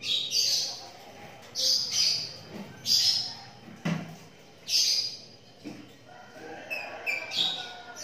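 Lovebirds chirping shrilly in about five short bursts while a pair mates. One sharp click comes just before the middle.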